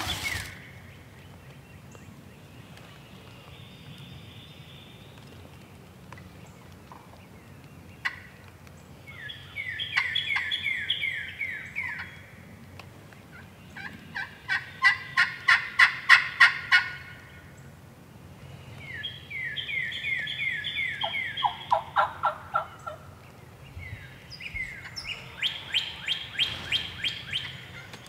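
Turkey calling: four runs of rapid, evenly spaced turkey notes, each lasting a few seconds, with quiet pauses between them.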